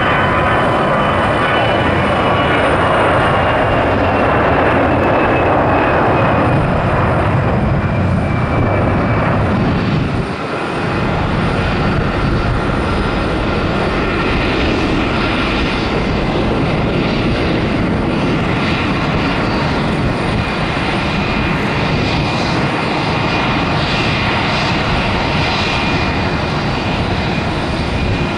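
Airbus A320 jet engines at takeoff thrust through the takeoff roll and climb-out: a loud, steady rumble with a high whine that falls slowly in pitch over the first several seconds as the aircraft passes.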